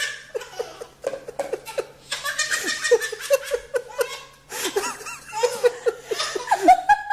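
A person laughing hard in long runs of quick pulses, with short breaks for breath about one second and four and a half seconds in.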